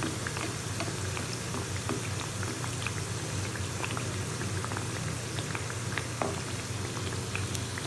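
Nimki (leaf-shaped flour-dough pastries) deep-frying in oil at medium-low heat: a steady sizzle dotted with many small crackles and pops, over a faint low hum. There is one sharper click about six seconds in.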